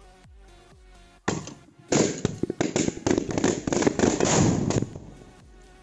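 Firecrackers going off inside a small glass box. A sudden hissing burst starts a little over a second in. A rapid string of loud bangs and crackles follows for about three seconds, then stops. Electronic background music plays before and after.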